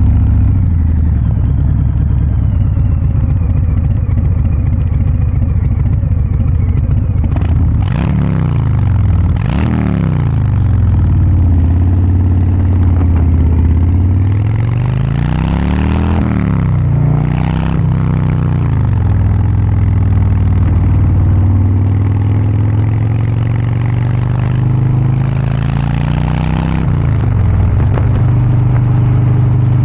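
Harley-Davidson Breakout 114's 1868 cc V-twin running through a Kesstech valved exhaust, revving up and dropping back several times between stretches of steady running.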